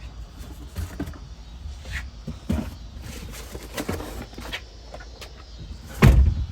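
Scattered light clicks and knocks from plastic dash parts being handled while an ignition switch is removed and swapped, over a low steady background hum. There is one louder thump about six seconds in.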